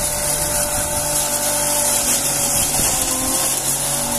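Electric straw and grain crusher (drobilka) running steadily while dry straw is fed into its hopper and chopped, a constant high hiss of shredding over a steady motor hum.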